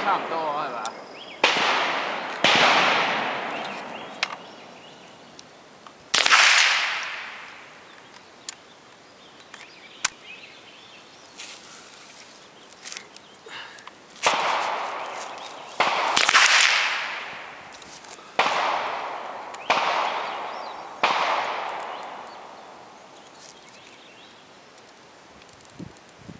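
Rifle shots on an outdoor firing line, about nine at irregular intervals, two of them in quick succession near the middle. Each is a sharp crack whose echo fades over a second or two. Faint clicks fall between the shots.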